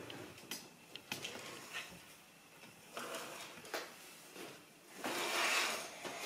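Small Lego plastic pieces clicking and clattering on a hard countertop as they are tipped out of their bag and picked over. A longer rustling stretch comes about five seconds in.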